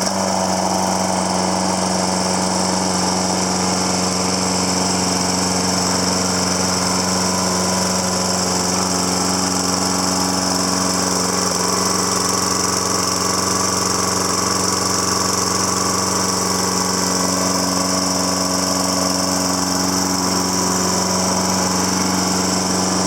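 2008 Toro Personal Pace lawn mower's 6.75 gross-torque Briggs & Stratton engine running steadily, with an even, unchanging engine note.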